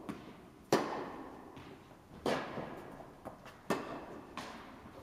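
Tennis rally: a ball struck by rackets, with three sharp hits about one and a half seconds apart and lighter bounces between them. Each hit rings on in the echo of a large indoor tennis hall.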